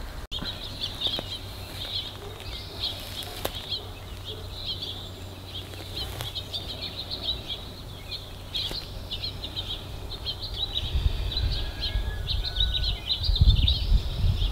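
Small birds chirping busily, many short, quick high chirps overlapping without a break. Low rumbles come in near the end.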